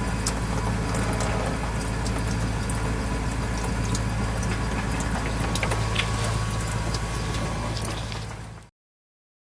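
A steady low mechanical hum with a wash of noise over it and scattered small clicks and taps. It fades out quickly near the end and is followed by dead silence.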